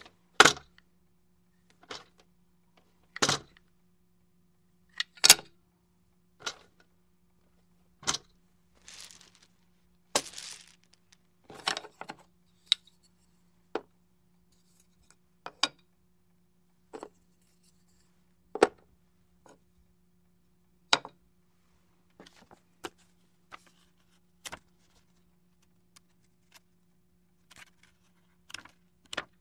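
Board game pieces being handled and set down on a table: a series of sharp clicks and knocks, one every second or two, with a couple of brief rustles about nine and ten seconds in.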